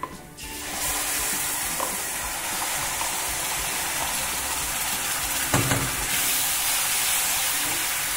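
Wet ground masala paste hitting hot oil in a steel pan and sizzling hard, starting about half a second in as it is scraped out of a mixer jar with a wooden spatula. A single knock about five and a half seconds in.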